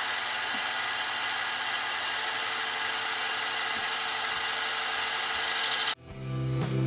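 Milling machine running steadily, its half-inch end mill taking a light cut in brass bar stock. About six seconds in the machine sound cuts off suddenly and rock music with guitar and drums starts.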